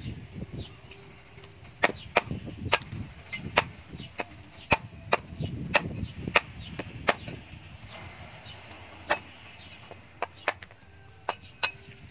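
Heavy cleaver chopping raw chicken pieces on a wooden chopping block: sharp, separate chops about one or two a second, thinning out in the last few seconds.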